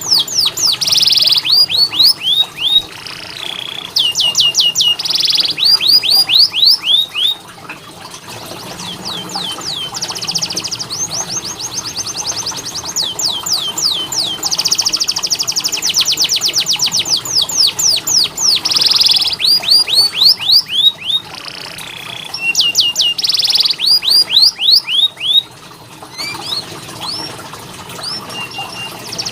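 Domestic canary singing: fast trills of repeated falling notes, switching from one phrase to the next every second or two with brief pauses between.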